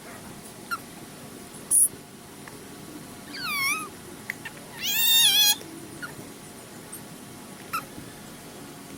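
A cat: a short sharp puff of noise, then two meows, the second louder and longer with a wavering pitch.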